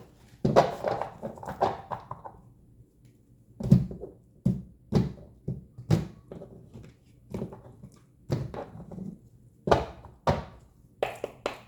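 A deck of tarot cards being handled on a table: a quick patter of card noise at first, then about ten separate dull thunks at uneven intervals as the deck is knocked and cards are set down.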